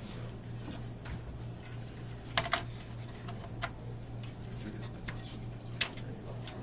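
A few sharp clicks and taps as a computer processor is fitted into its motherboard socket, the loudest near the end, over a steady low hum.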